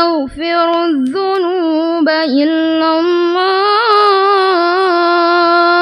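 A male reciter chanting the Quran in melodic tajwid style: one long, high, ornamented phrase with quick turns and a couple of brief breaks, settling into a steadily held note in the second half.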